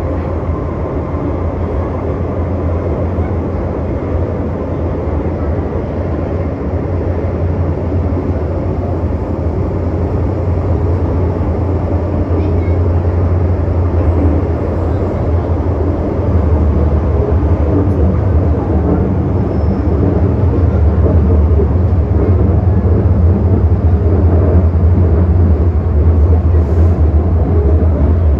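Metro-Cammell M-Train subway car running through a tunnel, heard from inside the car: a steady, loud low rumble of wheels and running gear on the rails, growing gradually louder.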